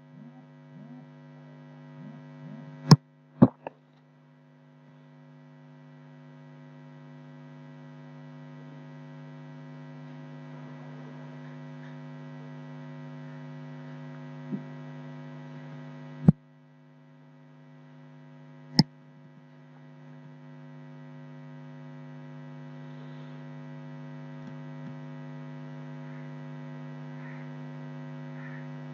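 Steady electrical mains hum on the recording microphone: a low buzzing tone with many overtones. It is broken by a few sharp clicks, two about three seconds in and two more past the middle. After the first pair and the third click the hum dips away, then slowly swells back.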